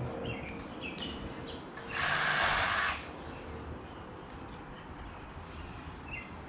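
Small birds chirping now and then over a steady outdoor background hiss. About two seconds in, a loud burst of noise lasts about a second.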